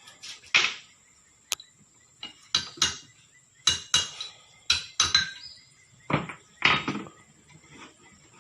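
Irregular metal clanks and clinks, about a dozen in the first seven seconds, several ringing briefly: steel tools and parts knocking together during work on an excavator's track assembly.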